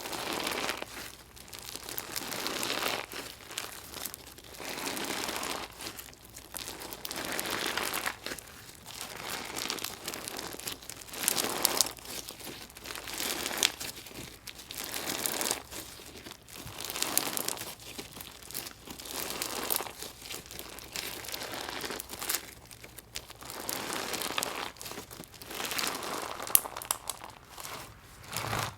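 Hands kneading and squeezing a gritty, crunchy slime, crackling and crinkling in repeated squeezes about every two seconds.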